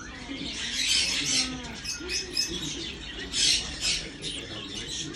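Marmosets giving a run of short high-pitched chirps, about two a second, with a few thin squeaky whistles among them.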